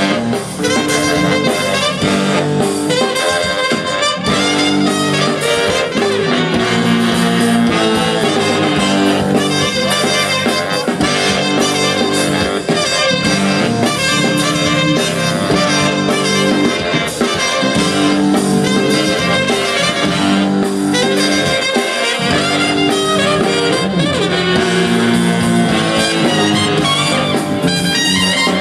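Live funk-jazz band jamming: brass horns play held and moving lines over a drum kit, loud and unbroken.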